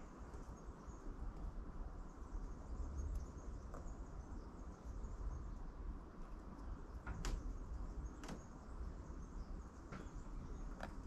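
Faint handling sounds of seeds being pressed into the soil-filled cells of a plastic seed tray, with a few light clicks in the second half over a low rumble.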